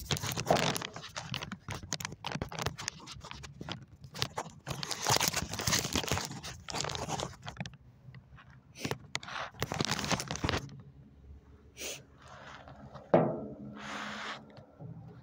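Handling noise on a phone's microphone: irregular scraping, rubbing and clicking as the phone is moved about and set in position, with a single sharp knock near the end.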